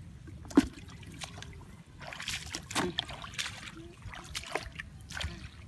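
Splashing and sloshing in shallow muddy water as hands grope for fish in a flooded grass field, with a sharp knock about half a second in and several short splashes after it.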